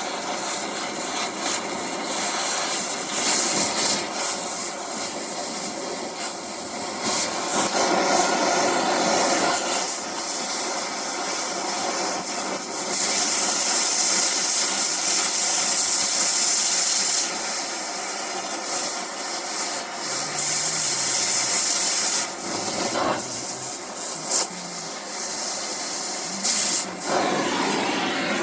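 Oxy-fuel cutting torch hissing steadily as it cuts a seized bolt out of a steel tractor wheel rim, with a louder, sharper hiss for about four seconds midway.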